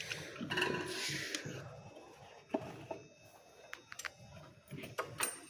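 A few scattered light clicks and knocks, as of hard objects being handled, over faint low murmuring.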